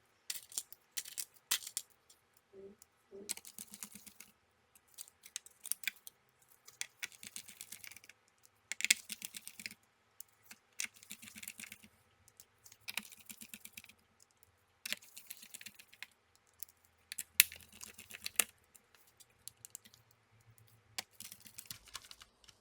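Small screws being driven into a laptop motherboard with a precision screwdriver: about ten short bursts of fine clicking and scraping, each around a second long, with pauses between them.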